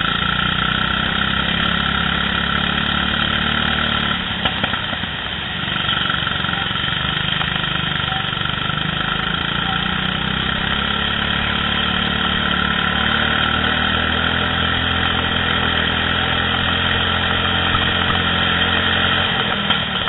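Indoor go-kart engine running hard, heard from the driver's seat. Its note drops briefly about five seconds in and then climbs back up.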